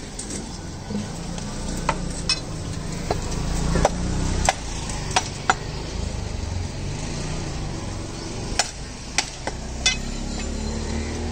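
A butcher's blade knocking sharply against a chopping block about a dozen times at irregular intervals, some knocks with a brief ring, over a steady low background rumble.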